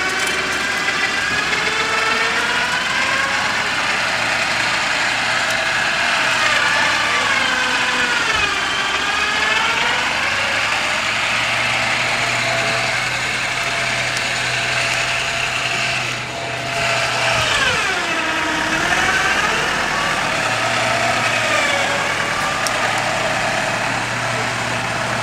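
Land Rover Defender engine revving up and down under load as the truck is driven through deep mud, its pitch repeatedly falling and climbing again over a few seconds, with deep dips in the revs about eight and eighteen seconds in.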